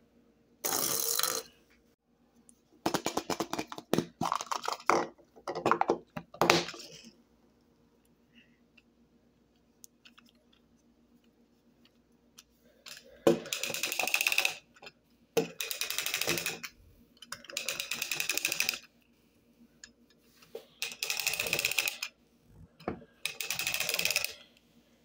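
Hand-worked plastic penguin toy mechanisms clattering in repeated bursts of rapid clicking, each about a second long, with short pauses between; there are about nine bursts.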